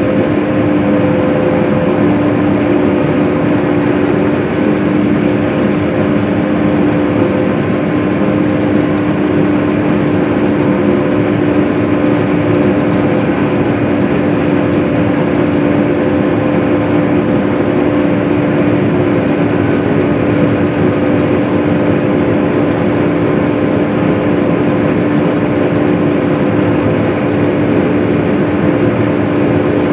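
Case IH self-propelled swather running steadily while cutting hay: an even engine drone with a constant hum that holds the same pitch throughout.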